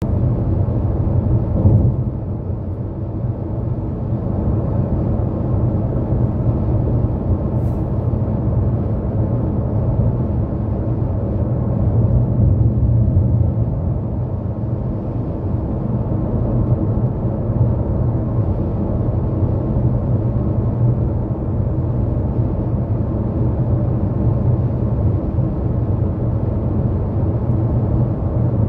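Road noise of a vehicle cruising at highway speed: a steady low rumble of tyres on the pavement and the running engine, holding even with no breaks.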